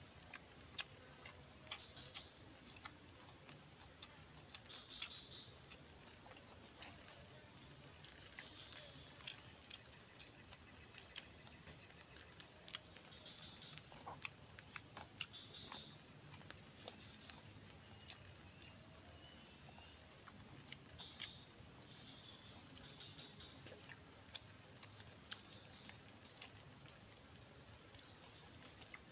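Steady insect chorus: a shrill high drone in two unbroken pitches, with faint scattered clicks and ticks.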